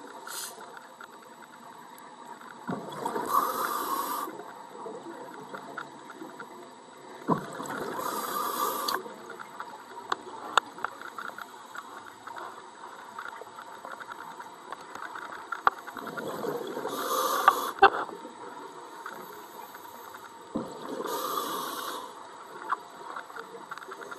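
Scuba diver's regulator underwater: four bursts of exhaled bubbles, each lasting one to two seconds and several seconds apart, with a few sharp clicks and faint hiss between them.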